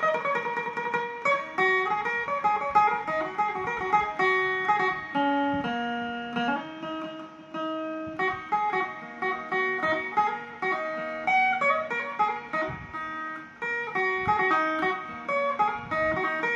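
A two-string Isan phin with a kranok-carved head, played electric through an amplifier: a melody of quick plucked notes mixed with a few held ones.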